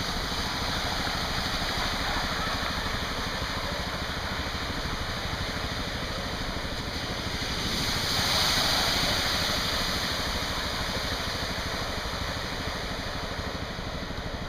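Moped engine running as it drives through deep floodwater, with a steady rush of water washing and splashing around it; the water noise swells louder about eight seconds in.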